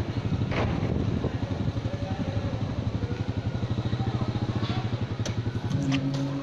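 Motor scooter engine running close by, idling with a quick, even throb. Near the end a steadier, deeper engine drone comes in, with a few light clicks.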